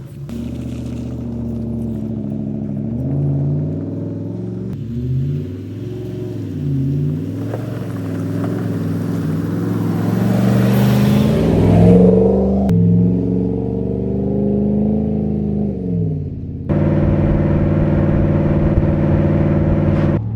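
Dodge Ram 1500's Hemi V8 exhaust through a replacement Aero Exhaust muffler, revving up and down as the truck accelerates through the gears, loudest about twelve seconds in. Near the end it changes suddenly to a steady, even drone.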